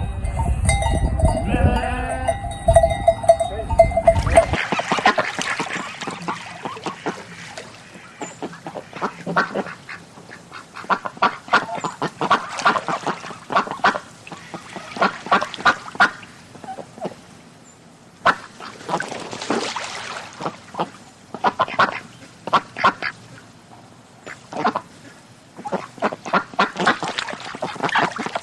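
Animals calling: an opening few seconds of a low rumble with a drawn-out call, then repeated bursts of short, rapid, chattering calls.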